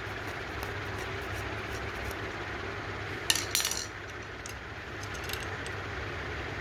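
A quick cluster of small metal clinks about three seconds in, like small parts or a tool set down on a workbench, over a steady low hum from the workshop, with a few fainter ticks later.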